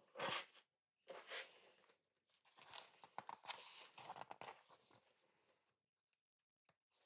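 Pages of an artbook being handled and turned: several bursts of paper rustling and crinkling with small clicks, the busiest stretch in the middle, then stillness near the end.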